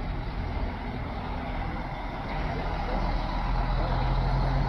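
Double-decker intercity coach's diesel engine running as the coach drives past and turns away. A second coach's engine grows louder from about three seconds in, with a steady low hum, as it approaches.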